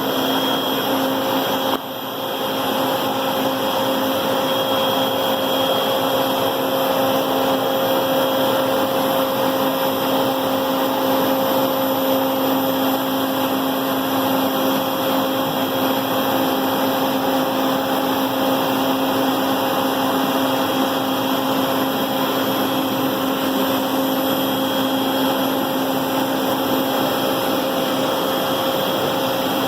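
CNC router cutting an aluminium composite (Alucobond) panel: the spindle runs with a steady whine over an even rushing noise, dipping briefly about two seconds in.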